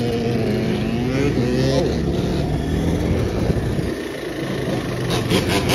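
Quad bike engine revving, its pitch climbing for about two seconds and then dropping sharply. Other quad engines idle steadily underneath.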